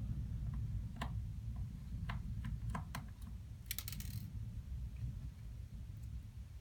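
Small sharp clicks and ticks of a screwdriver and tiny screws being worked into a laptop's screen bezel, with a quick rattle of clicks a little before four seconds in, over a steady low hum.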